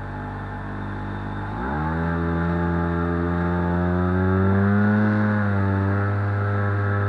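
Propeller motor of a Skywalker X8 flying wing, heard from the airframe in flight: a steady buzzing whine that rises sharply in pitch under more throttle about two seconds in, then holds with small swells.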